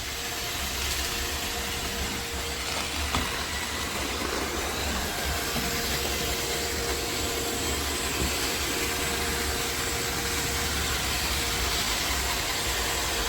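iRobot Roomba Combo robot vacuum running steadily, its suction motor and brushes giving an even whirring hum with a faint steady tone.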